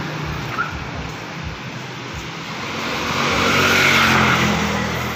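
A road vehicle passing by, its engine and tyre noise growing louder to a peak about four seconds in, then fading.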